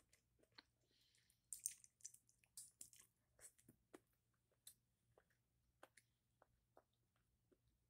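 A person chewing a bite of whole sauced octopus: faint, irregular wet clicks and smacks of the mouth and sticky sauce.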